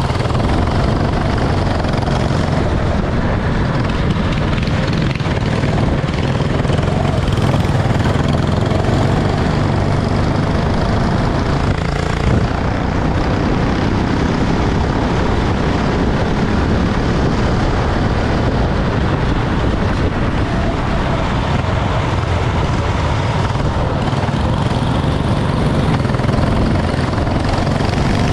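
Go-kart engines running continuously at race pace: a steady, loud drone without pauses.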